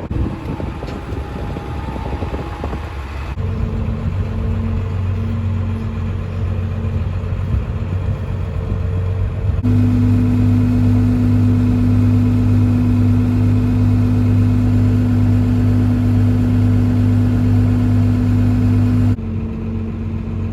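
Tractor engine running steadily and pulling the grain cart's unloading auger while the cart empties into a truck. The engine note steps up about three seconds in, rises again louder about ten seconds in, and drops back shortly before the end.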